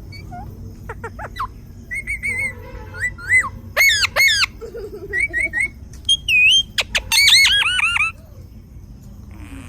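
A parrot calling: a string of short whistles and squawks, many sliding up or down in pitch, in quick clusters over several seconds.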